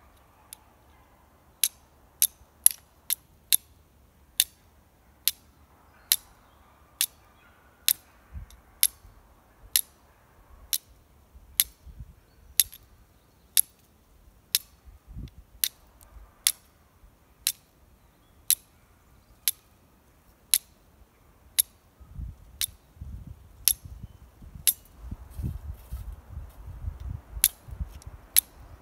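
Flint and steel being struck over and over: sharp, high clicks about once a second, some in quick pairs. Low rustling and handling noise joins in for the last several seconds.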